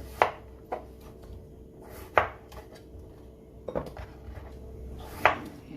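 Kitchen knife cutting peeled potatoes into quarters, the blade knocking sharply on the cutting board about five times at uneven intervals.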